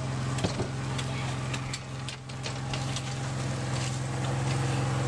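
A steady low motor hum, even and unchanging, with light clicks and scrapes scattered over it.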